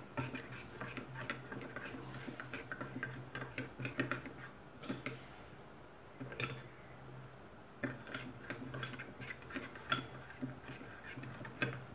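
A metal spoon stirring a thick sauce in a small bowl, with light, irregular clicks as it taps and scrapes the bowl's sides. A faint low hum runs underneath.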